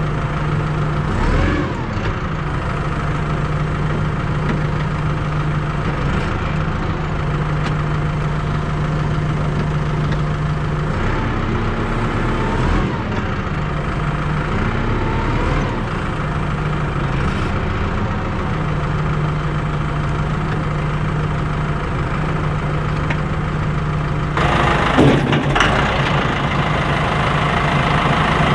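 Engine idling steadily, with a few brief shifts in pitch around the middle. The sound changes abruptly near the end, turning brighter.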